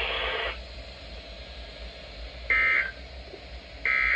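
EAS/SAME end-of-message data bursts on a NOAA Weather Radio broadcast: two short, harsh digital tone bursts about a second and a half apart, signalling the end of the alert test. A steady hiss cuts off about half a second in.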